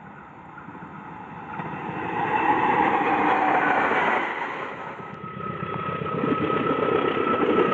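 A train approaches, growing louder over the first two to three seconds, then runs on with a dense rumble and a steady high whine from about five seconds in.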